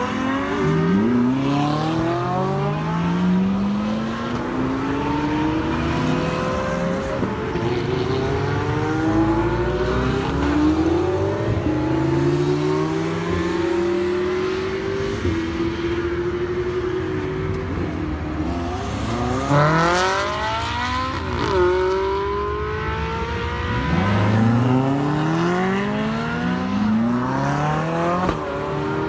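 Ferrari sports cars accelerating hard away one after another, each engine note climbing in pitch through the gears and dropping back at every upshift, several cars overlapping.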